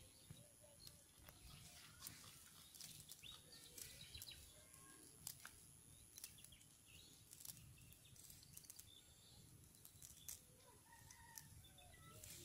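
Faint, sparse rustles and small clicks of a fine-mesh fishing net being handled and picked through by hand, with short bird chirps now and then.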